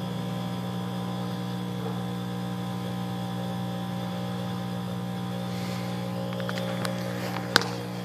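Microwave oven running with a steady electrical hum while it fails: it has been arcing badly and is smoking. A few sharp clicks come near the end.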